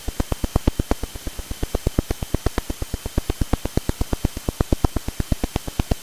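Radio-telescope signal of the pulsar PSR B0329+54 turned into sound: a rapid, regular train of sharp clicks, about eight a second and varying in strength, over a steady static hiss.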